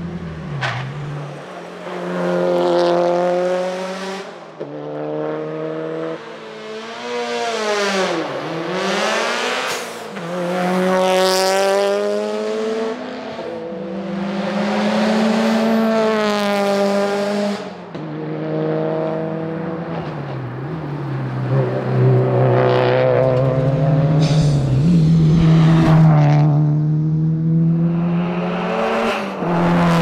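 Subaru WRX STI rally car's turbocharged flat-four engine revving hard through the gears as it passes by several times at speed. The pitch climbs and breaks with each shift and dips on the overrun, and one pass about eight seconds in gives a sharp drop in pitch as the car goes by.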